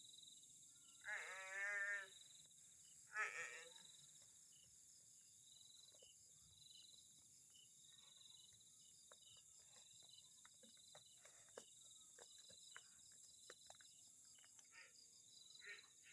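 Faint bleating: one long, quavering bleat about a second in, then a shorter one soon after. Under it runs a steady, pulsing chirr of night insects, with scattered faint clicks later on.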